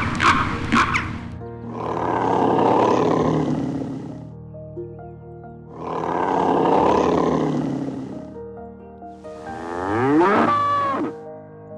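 Two long, hoarse animal calls of about two and a half seconds each, then a cow mooing near the end, its pitch rising and falling, over a steady music bed.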